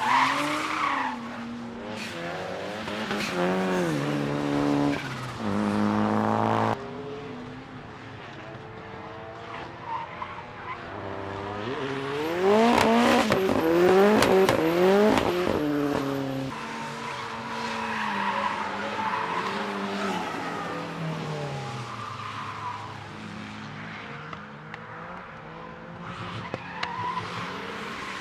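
Retro cars drifting past on a race track, engines revving up and down through the slides with tyres squealing. One car holds steady revs before cutting off sharply about seven seconds in, and the loudest car passes about halfway through with its revs sweeping up and down.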